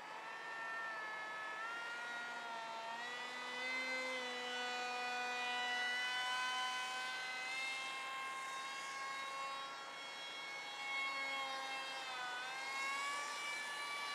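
Radio-controlled model Alpha Jet whining in flight. Its pitch climbs over the first few seconds, holds, then dips and climbs again near the end as the model makes its passes.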